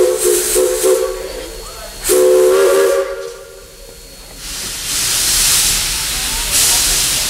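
Steam locomotive's chime whistle sounding several tones at once: short pulsed toots at the start, then one blast of about a second starting some two seconds in. From about four and a half seconds comes a loud hiss of steam that swells twice.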